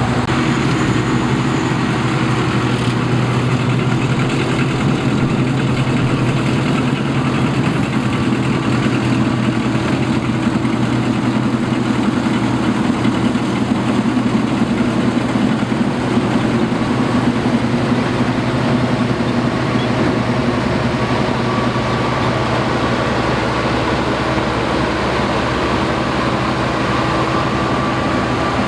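Combine harvester's engine and machinery running steadily with a constant hum, a faint higher whine joining after about twenty seconds.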